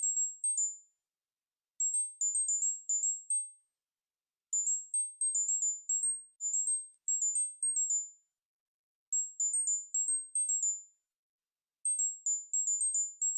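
A very high-pitched electronic tone sequence near 8 kHz, played for tinnitus relief. Quick pinging notes, about five or six a second, hop between two or three close pitches. They come in short runs, each note fading quickly, with pauses of about a second between runs.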